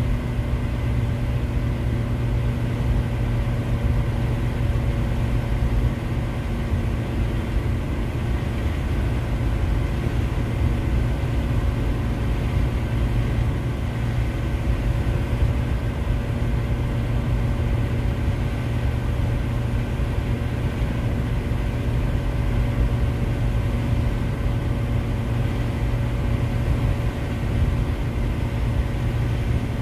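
Steady road and engine noise inside a Volkswagen Eurovan's cabin at a constant cruising speed: a low drone with a few steady humming tones over it.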